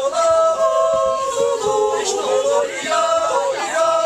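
Several voices singing a tune without instruments, in long held notes that step from pitch to pitch.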